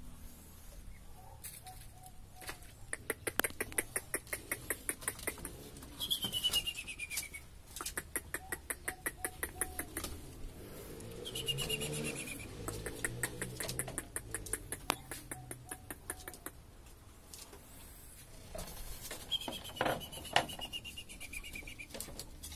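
Bird calls: several runs of rapid, evenly spaced clicking, and a falling whistle heard three times.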